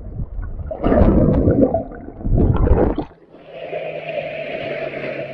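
Sea water surging and gurgling around a submerged action camera in shallow, rocky surf, heard muffled and rumbling in two surges. About three seconds in it cuts suddenly to a thinner, steady hiss of lapping water as the camera nears the surface.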